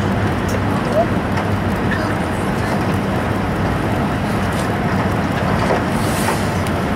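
Running noise inside an E5 series Shinkansen car: a steady, dense rumble of wheels and air with a low hum under it.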